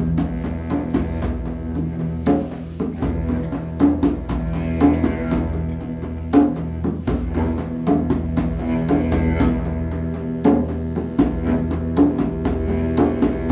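Live tribal-style jam music: a didgeridoo holds a steady low drone while drums are struck over it at an uneven pace.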